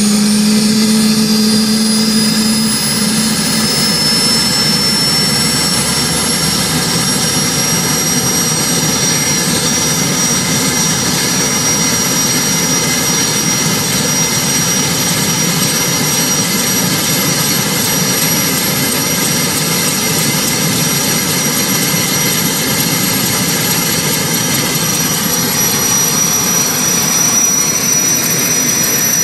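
Sud Aviation Gazelle helicopter's Turbomeca Astazou turboshaft running up during start-up: a high turbine whine slowly rising in pitch over the rush of the engine and the spinning rotor as it gathers speed. A low steady hum drops out about two and a half seconds in.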